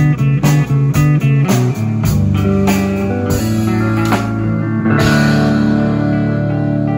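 Live band playing an instrumental ending on electric and acoustic guitars and pedal steel guitar over a drum kit. The drum beat stops about two seconds in, and a final chord is struck about five seconds in and left to ring.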